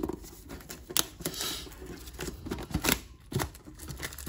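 Plastic shrink wrap crinkling and crackling as fingers pick at it and peel it off a metal trading-card tin. Irregular sharp clicks and crackles run through it.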